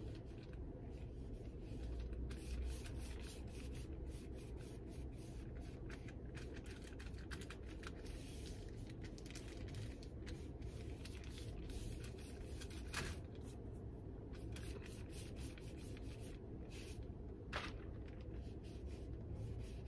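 Faint scratching and rubbing of a paintbrush stroking acrylic paint onto paper, over a steady low room hum, with two small ticks in the second half.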